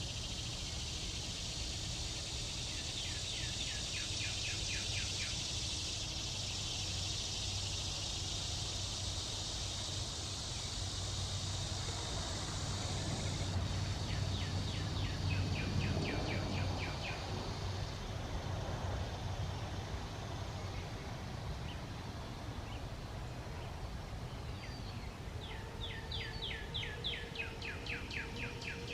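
Outdoor ambience: a steady high insect drone that shifts in level a few times, with a songbird singing three bursts of quick repeated chirps and a low background rumble. A faint steady tone comes in near the end.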